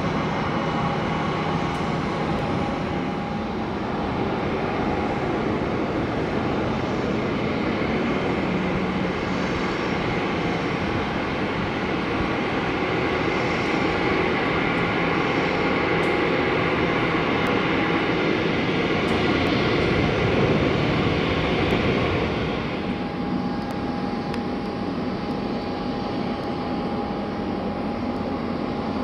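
Jet engines of an Airbus A340-300 (four CFM56-5C turbofans) running as the airliner rolls out and turns off the runway after landing: a steady jet rumble with a whine. It grows a little louder, then drops off abruptly about three-quarters of the way through.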